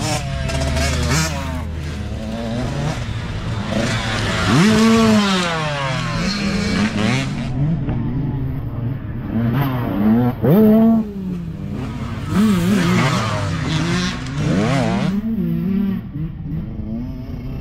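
Several youth dirt bike engines revving hard as the bikes ride the trail one after another, pitch climbing and then dropping at each gear change, with the loudest surges about 4, 10 and 12 seconds in.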